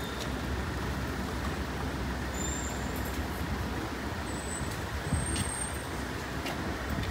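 Steady city street traffic rumble, with a few faint, brief high-pitched squeals a few seconds in.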